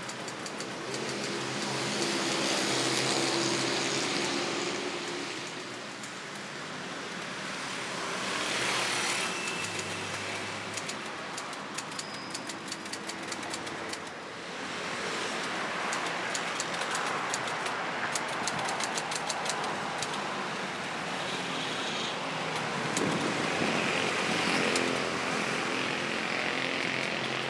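Road traffic passing, swelling and fading several times. From about ten seconds in, a typewriter's keys clack in quick, uneven runs over it.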